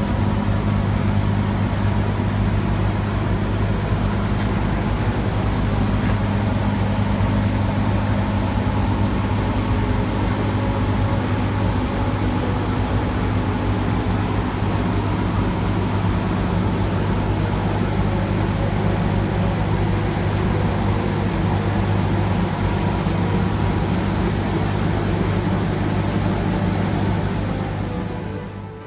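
A steady machine hum with an even rushing noise, fading out near the end.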